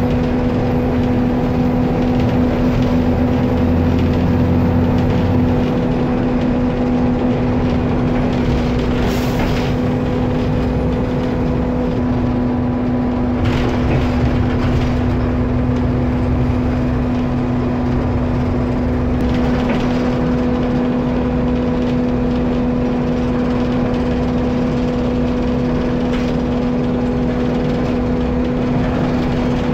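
Diesel engine of an Alexander ALX400 double-decker bus heard from the rear seats of the lower deck, running as the bus drives, a steady low drone with a constant tone over it. The engine note shifts about halfway through, and a couple of short hisses come through near the middle.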